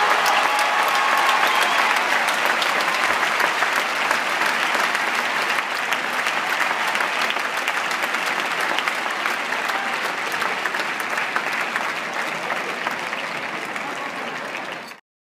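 Large audience applauding, the clapping slowly dying down, then cut off abruptly near the end.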